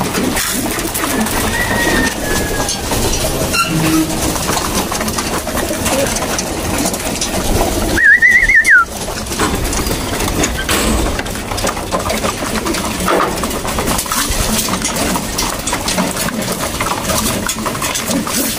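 A flock of racing pigeons cooing in a loft, with many short clicks and rustles from the birds. About eight seconds in comes one loud, warbling whistle lasting under a second.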